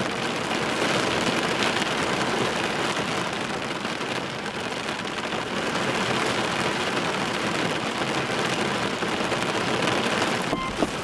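Steady rain falling on the roof of a car, heard from inside the cabin.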